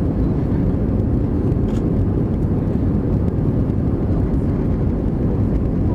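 Thai AirAsia Airbus A320-200's jet engines, a steady low rumble with no change in pitch.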